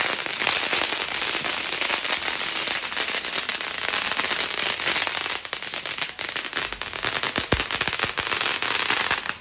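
Ground fireworks spraying sparks with a dense, continuous crackle that thins into separate pops in the second half, with one louder bang about seven and a half seconds in.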